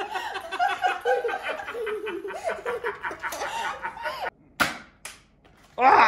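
A man and a boy laughing, then two sharp snaps from a toy foam-dart blaster being fired about four and a half and five seconds in, followed by a child's loud shout near the end.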